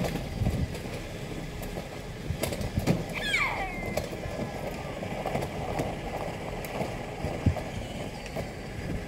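Low, steady rumble of a car rolling slowly, heard from inside the cabin through an open window, with scattered light knocks. About three seconds in, a short call falls in pitch.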